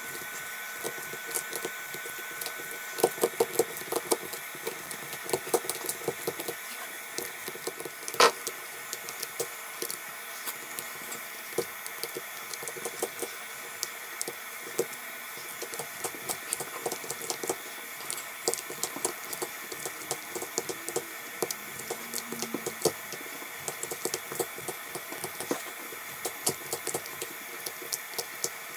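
Small repair tools scraping and clicking against a smartphone's body: a run of irregular light clicks and scrapes over a steady hiss, with one sharper, briefly ringing click about eight seconds in.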